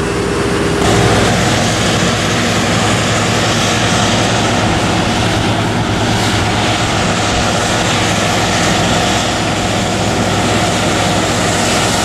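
An engine running steadily at a constant speed, a loud drone. About a second in its note changes to a deeper, slightly louder hum, which then holds steady.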